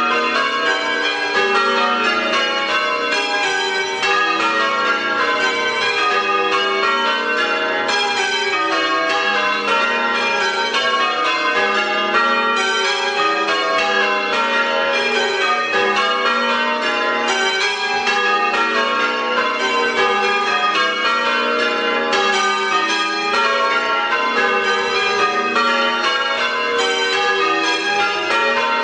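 Church bells change ringing a Major method on eight bells: a steady, unbroken stream of strokes with each bell's tone ringing on into the next.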